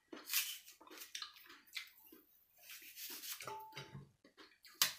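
Small knife cutting pieces off a crisp apple held in the hand: a run of short, wet, crisp cuts at irregular intervals.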